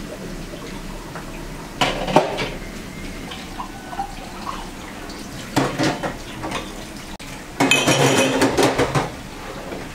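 Dishes washed by hand under a running tap: water runs steadily into a stainless steel sink while plates and glassware clatter and clink against each other and the metal basin, in short bouts with a longer stretch of clattering near the end.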